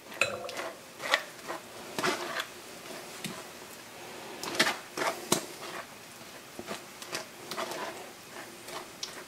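A spoon scraping and knocking against a stainless-steel mesh strainer as thick chile sauce is pressed through it, in irregular clicks and scrapes with a few sharper knocks.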